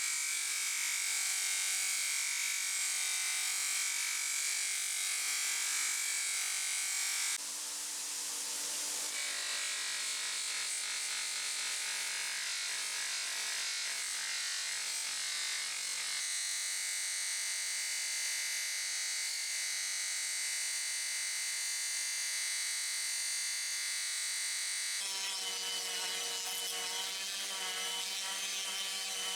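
A small power tool running steadily with a high whine, its pitch and tone changing abruptly several times, a few seconds in, around the middle and again near the end.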